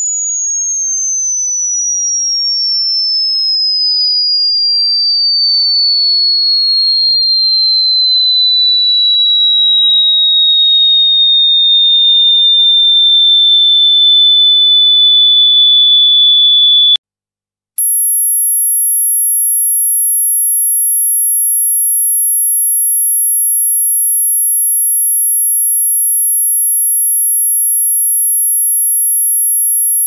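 Electronically generated pure tone played as a dog whistle sound: one high whistle that glides slowly down in pitch and cuts off suddenly about 17 seconds in. After a short gap a steady, even higher-pitched tone starts.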